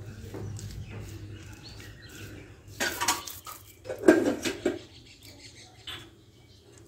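Wet mud being worked by bare hands, smoothed and pressed around the chimney hole of a clay stove. Two louder bursts of rubbing and patting come about three and four seconds in, with a smaller one near the end.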